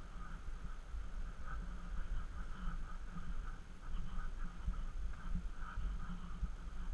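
Muffled rumble and handling noise from a handheld action camera carried at walking pace, with uneven soft footfall-like knocks from walking across a tiled floor.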